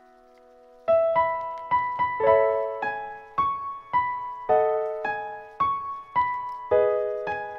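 Solo piano music. A held chord dies away, then about a second in a gentle melody of single struck notes begins, at roughly two notes a second.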